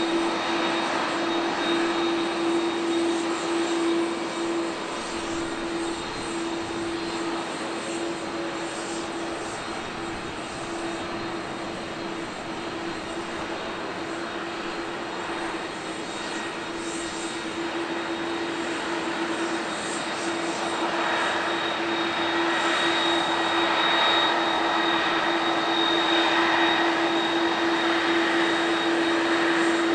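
Airbus A330-302's General Electric CF6-80E1 turbofans running at taxi power, a steady jet hum with one strong steady tone, growing louder over the second half as the aircraft taxis past.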